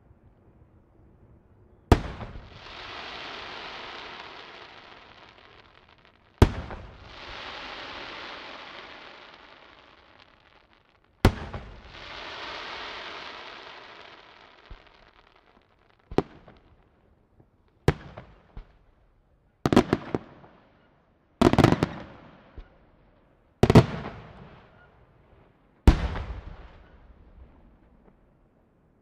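Aerial firework shells bursting with sharp bangs. Each of the first three is followed by several seconds of hissing crackle as the stars burn out, and they give way to a quicker run of shorter bangs, some coming in pairs, about nine bangs in all.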